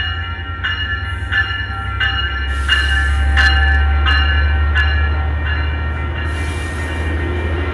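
Metrolink diesel-hauled commuter train passing close by: the locomotive's low rumble swells to its loudest about three seconds in as it goes by, then the bilevel coaches roll past. A warning bell rings steadily all the while, about three strokes every two seconds.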